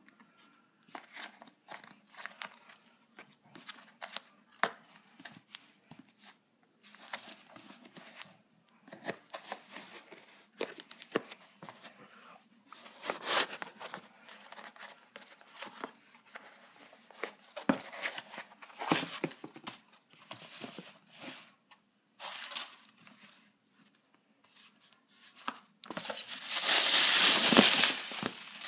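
Tissue paper and a cardboard shoe box being handled: scattered short rustles and crinkles, then a louder crinkling of the tissue paper for about two seconds near the end.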